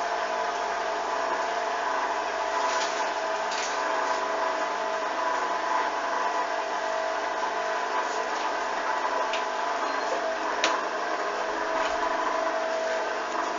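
Hoover washing machine running steadily, its drum spinning with an even motor whine, with a few faint clicks.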